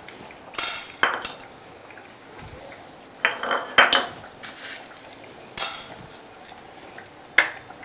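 A metal spoon clinking and clattering a few times as whole black peppercorns are scooped and dropped into a dry frying pan of roasting cinnamon and cloves.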